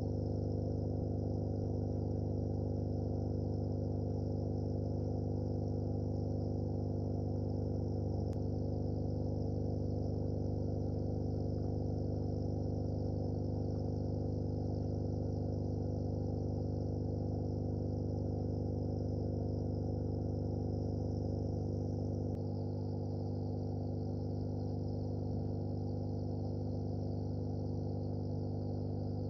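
A steady droning hum with a faint high whine above it, unchanging throughout, with one small click about eight seconds in and a slight drop in level about twenty-two seconds in.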